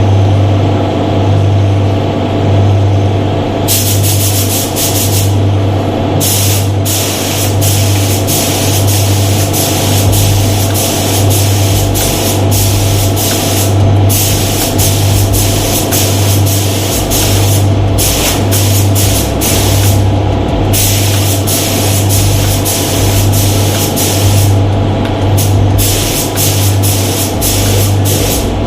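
Compressed-air paint spray gun hissing in many short on-off bursts, starting about four seconds in, over a steady low hum.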